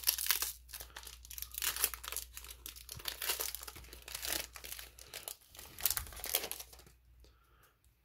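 Foil trading-card booster pack wrapper being torn open and crinkled by hand: a run of sharp crackling and tearing that stops about seven seconds in.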